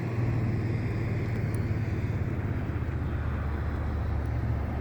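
Steady low rumble of a vehicle engine or traffic, with no firework bangs.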